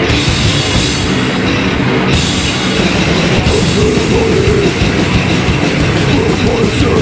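Goregrind band playing live and loud: distorted electric guitars, bass and drum kit.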